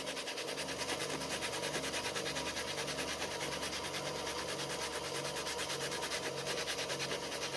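Sandpaper (120 grit) rubbed by hand in quick, even back-and-forth strokes over the rubber of a stroller's inner tube, roughening it around the puncture so the glue for a patch will adhere.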